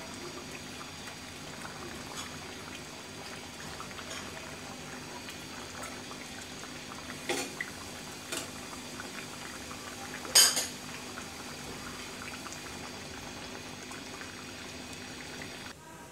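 Fish curry simmering in a metal pot, a steady crackly bubbling. A few clinks of a utensil against the pot come about seven and eight seconds in, and a louder one about ten seconds in. The bubbling cuts off just before the end.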